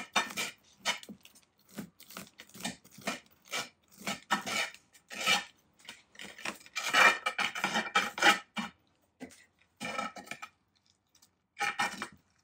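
A tool scraping and knocking against the inside of a bonsai pot in quick, irregular strokes, prying at tightly root-bound soil to free a black pine. The scraping is loudest a little past the middle, with short pauses near the end.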